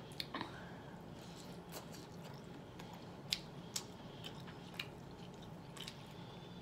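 A person chewing broiled lobster tail and shrimp, with scattered sharp wet clicks and smacks.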